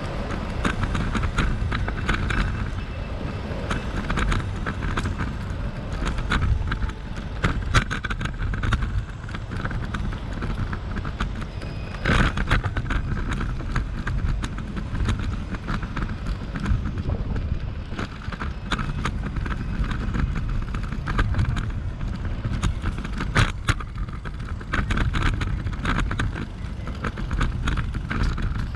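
Riding a bicycle along a town street: wind buffeting the microphone with a steady low rumble, and frequent small rattles and clicks from the bike over the road surface.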